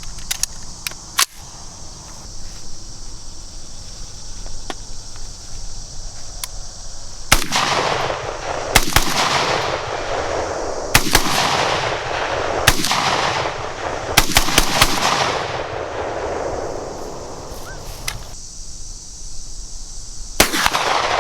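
A string of about ten gunshots spaced a second or more apart, with three or four fired in quick succession about two-thirds through. Each loud shot trails off in a long rolling echo.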